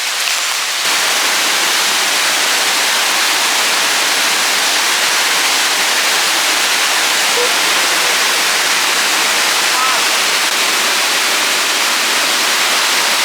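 Waterfall water rushing, loud and steady, getting louder about a second in. A faint distant call or two is heard over it.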